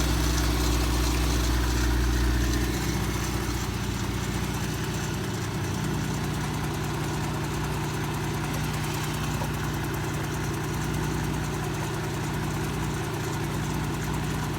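2019 Dodge Durango engine idling steadily while its cooling system is bled of air after a thermostat replacement. The hum drops a little in level about three seconds in, then holds steady.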